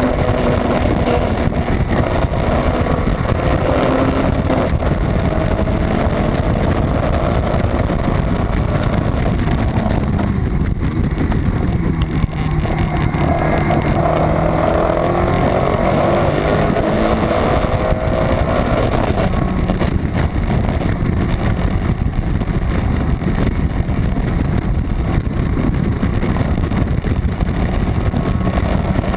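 Honda Civic EG race car's B18 non-VTEC four-cylinder engine running hard at track speed, its pitch climbing and dropping back repeatedly as it revs and shifts, with wind rushing over it.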